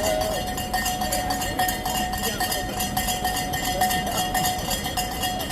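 Spectators' cowbells clanging continuously, with a steady ringing tone, mixed with scattered shouts of cheering from the crowd.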